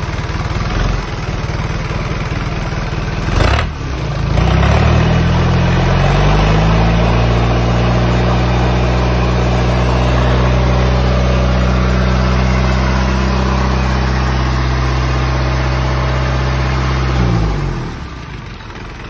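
Isuzu 4HF1 4.3-litre four-cylinder diesel engine running: idling, then revved up about four seconds in and held steady at a raised speed before dropping back to idle near the end. A single sharp knock sounds just before the revs rise.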